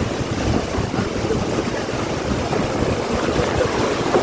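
Storm wind and heavy rain, a loud steady rush with gusts buffeting the microphone.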